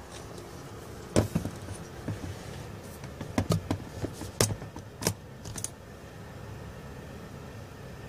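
A run of irregular sharp clicks and taps, about fifteen of them, the first about a second in the loudest, stopping just before six seconds in, over a steady low hum.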